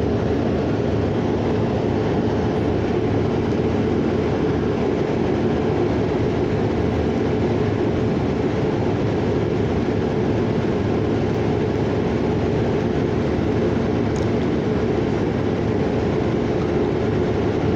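Steady running noise heard inside a city transit bus on the move: engine drone and road rumble at a constant level, with a faint steady hum.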